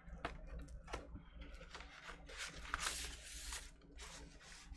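Paper and cardboard rustling as a vinyl LP in a paper inner sleeve is slid out of its record jacket, with scattered light clicks and a longer scraping rustle about three seconds in.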